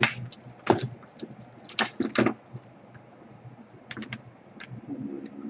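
Irregular clicks and taps of a laptop being handled, with a few louder knocks about a second in, around two seconds in and about four seconds in.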